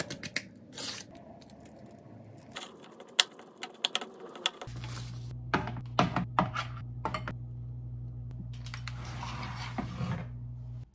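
Ceramic bowls and dishes clicking and knocking as they are handled and set down on a wooden tray and a stainless-steel counter, in scattered light taps. A steady low hum comes in a little under halfway through.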